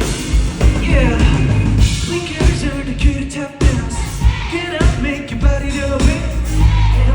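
Live pop-rock band playing loudly through a concert PA, with a drum kit, heavy bass and sung vocals.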